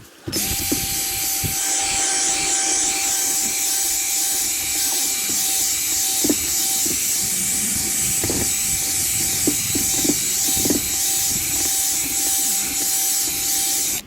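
A drill spinning an abrasive pad against a plastic headlight lens: a steady motor whine over a rubbing hiss, starting suddenly and holding at an even speed.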